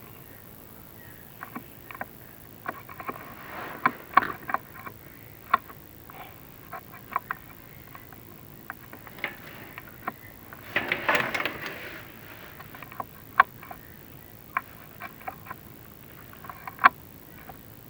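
Irregular clicks and light knocks, with a longer scrape about eleven seconds in, as a chimney inspection camera is lowered down a masonry flue and rubs against its walls.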